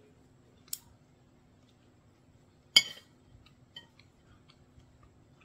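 A few scattered light clicks and clinks of small hard objects being handled, with one sharp clink a little under three seconds in, over a faint steady hum.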